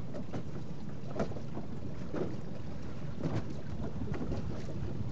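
Steady wind and water noise on choppy open sea, with scattered small splashes of waves.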